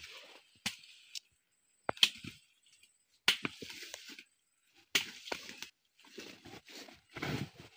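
Machete chopping cassava roots off the stalk: a handful of sharp, separate chops a second or so apart, with rustling and knocking of roots being handled in between.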